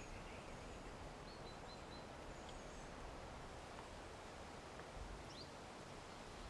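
Faint steady background hiss of a wintry forest, with a few short, high bird chirps scattered through it.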